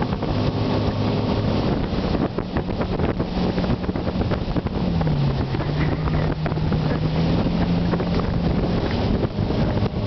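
Motorboat engine running under load while towing a tube, with water churning in the wake and wind buffeting the microphone. About five seconds in the engine note drops briefly, then holds steady a little lower.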